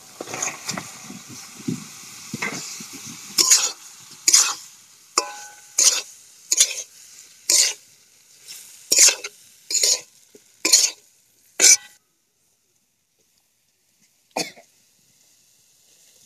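Fried cauliflower florets tipped into sizzling masala in a metal karahi, then stirred with a spatula: about ten sharp scraping strokes against the pan, roughly one a second, over a faint sizzle. The sound cuts off suddenly near the end, with one more stroke after.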